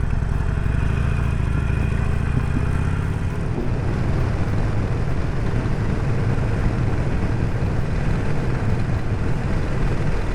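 Harley-Davidson Sportster Forty-Eight's air-cooled V-twin engine running steadily as the motorcycle rides along, with wind rushing over the rider's microphone.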